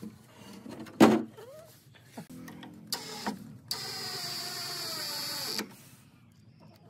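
A sharp wooden knock about a second in, then a cordless drill-driver running for about two seconds as it drives a screw through a steel door hinge into pallet wood, its pitch sagging slightly as the screw seats before it stops abruptly.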